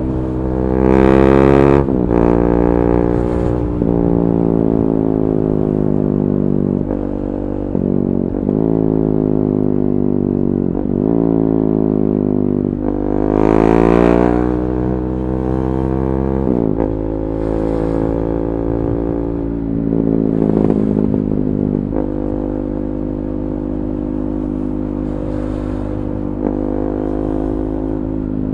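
KTM 390 Duke's single-cylinder engine through an Akrapovic slip-on exhaust with the catalytic converter removed, its revs rising and falling again and again. The pitch climbs strongly about a second in and again around the middle, with several sharp brief drops between.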